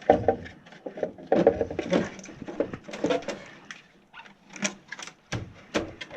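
Irregular light clicks and knocks from a plastic furnace cold header box being handled.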